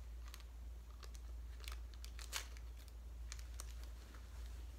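Scissors snipping open a small plastic toy package, with light crinkling of the plastic: a few short, sharp snips spread over several seconds.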